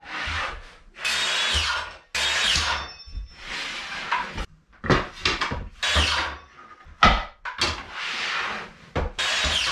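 Cordless circular saw cutting short wooden boards: a quick run of separate cuts, each lasting about a second, with the motor stopping between them.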